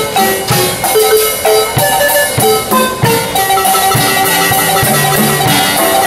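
Marimba playing a lively tune of quick struck notes that ring and fade, with a drum kit keeping the beat.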